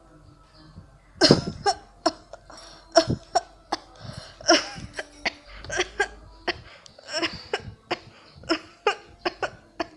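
A person coughing over and over: a string of short, sharp coughs that starts about a second in and keeps coming at irregular intervals.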